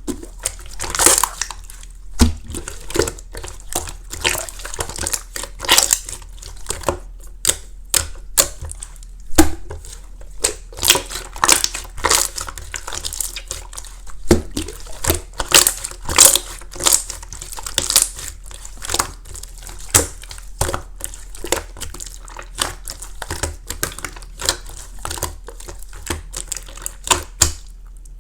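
Clear slime mixed with crunchy flakes being pressed and squeezed by hand, giving irregular crinkly crackles and sharp pops.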